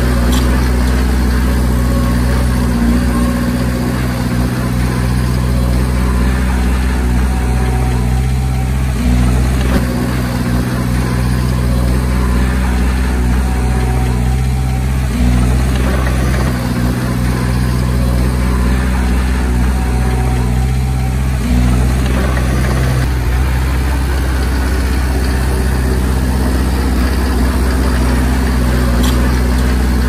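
Diesel engine of heavy earthmoving machinery running steadily at an even pitch, its note shifting slightly a few times.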